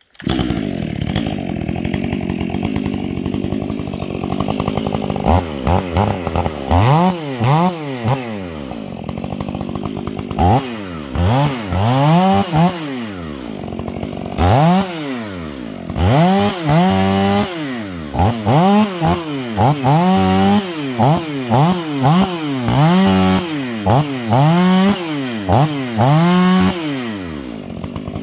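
Stihl 500i fuel-injected two-stroke chainsaw with an 8-pin rim sprocket, running steadily for about five seconds. It is then revved up and back down about once a second in short bursts as it cuts small wood.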